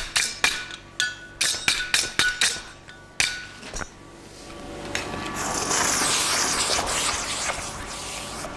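A hammer striking hot steel on an anvil, about ten ringing blows in the first three seconds. Then a loud hiss and sizzle from about five seconds in as the hot steel is quenched in a water tank, fading slowly.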